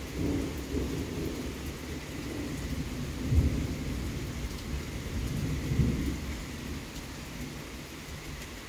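Thunder rumbling, swelling to two louder peaks about three and a half and six seconds in, then easing off. Steady rain hiss throughout.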